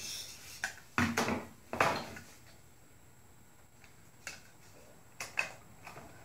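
Hard plastic clicks and knocks as a 30-amp shore power receptacle is handled and fitted into its black plastic housing: a cluster of sharp clicks in the first two seconds, then a few lighter taps near the end.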